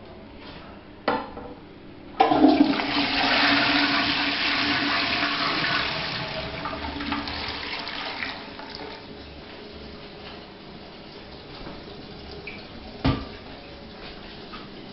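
A toilet flushing. A click about a second in, then a sudden rush of water into the bowl that fades after several seconds into a quieter steady run of water. A single sharp knock comes near the end.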